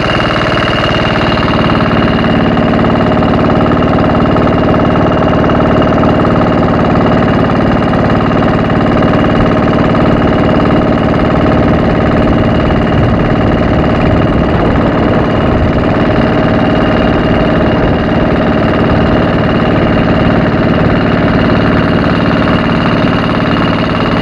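Wooden boat's engine running steadily under way, with a steady high whine over its drone.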